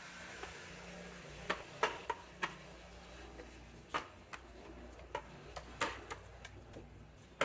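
Irregular light clicks and knocks of a Mercedes-Benz 722.9 transmission's ISM (intelligent servo module) being wiggled and pressed onto the transmission, working its splines onto the selector shaft until it seats. The clicks start about a second and a half in and come unevenly through the rest.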